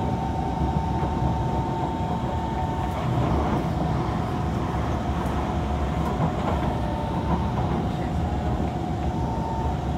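Inside a Kawasaki C151 MRT train running at speed: steady rumble of the wheels on the rails under a constant electric motor whine. About four seconds in, a train passes the other way with a brief rise in noise.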